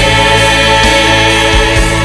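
Choir singing a Mizo gospel medley, the voices holding one long chord, with a low beat thudding underneath.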